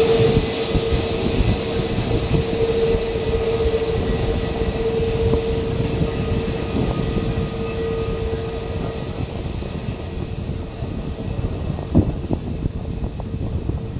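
Aircraft jet engines running with a steady whine over a rushing noise, slowly fading away. One short knock near the end.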